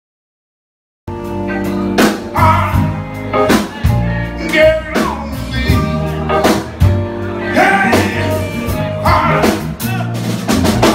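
Live soul band playing loud: drum kit, bass and guitar with a male singer. It cuts in suddenly about a second in after silence.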